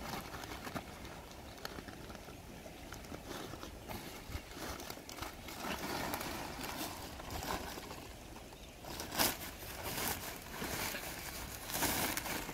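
Woven plastic rice sack rustling and crinkling as it is handled and lifted, with a louder crinkle about nine seconds in.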